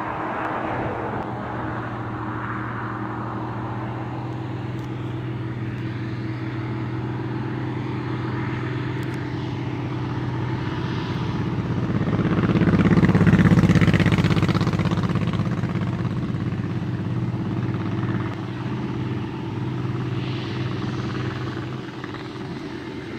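Track Marshall crawler tractor's diesel engine running under load while ploughing, a steady drone that grows louder to a peak a little over halfway through and then fades as the machine passes.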